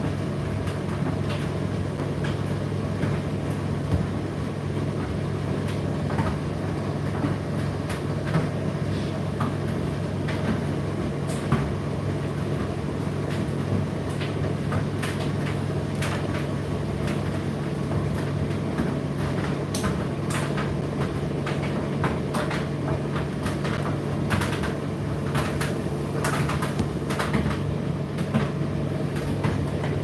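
Indesit IDC8T3 condenser tumble dryer running mid-cycle: a steady low motor and fan hum with frequent irregular light clicks throughout.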